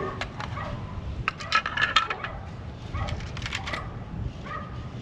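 Light metallic clinks and taps of small hardware being handled, in a quick cluster near the middle and a shorter one toward the end.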